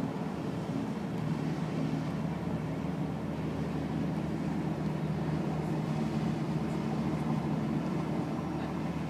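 Boat engines droning steadily with a low, even hum as vessels pass on the water.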